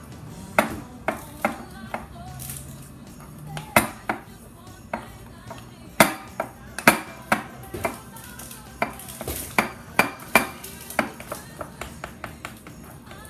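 A spoon clinking and scraping against a bowl in quick, irregular strikes as stiff royal icing is stirred, over background music.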